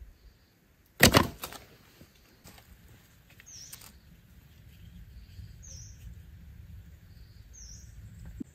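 Wooden sticks knocking together as a stake-fence trap is fitted by hand: one sharp clatter about a second in, then a few lighter taps. Faint bird chirps come every couple of seconds.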